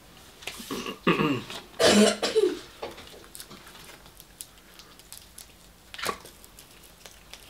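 A man coughing and clearing his throat several times in the first three seconds, then a short sharp noise about six seconds in.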